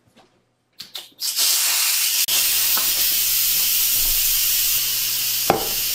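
Instant Pot Duo Plus 60's steam release valve turned to venting for a quick pressure release: a click or two, then, about a second in, a loud steady hiss of steam escaping. A sharp click sounds near the end.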